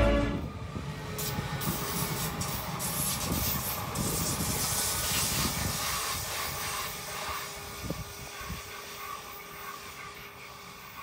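Südostbahn Stadler FLIRT electric multiple unit passing close by and running away, its wheel and rail noise loudest about five seconds in and then fading.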